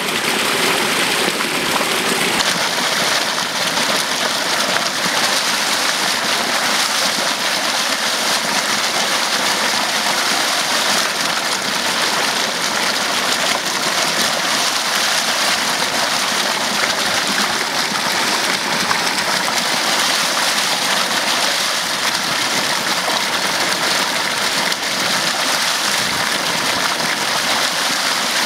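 Water gushing and splashing steadily from a strong outflow churning into a shallow pool.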